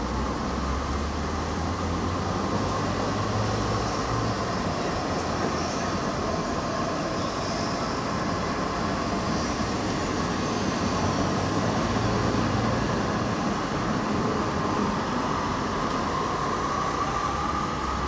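HTM GTL8 articulated tram running past on its rails, a steady rolling sound with a tone that bends upward in pitch near the end.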